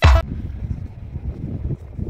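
Electronic dance music with a steady beat cuts off sharply just after the start. It gives way to wind buffeting the microphone, an uneven low rushing noise.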